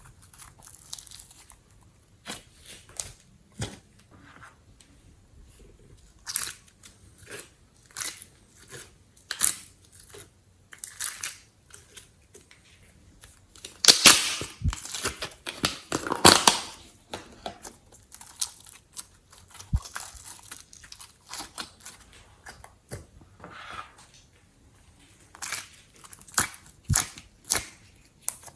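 Slime being squeezed, stretched and folded by hand, giving irregular sticky pops and crackles, with a louder run of crackling about halfway through.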